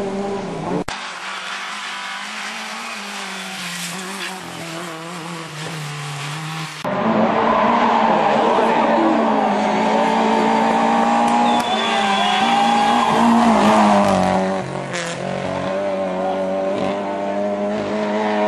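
Rally car engines at high revs, pulling hard and changing pitch as the cars come up the stage. The sound cuts sharply about a second in, and again about seven seconds in, where it turns much louder.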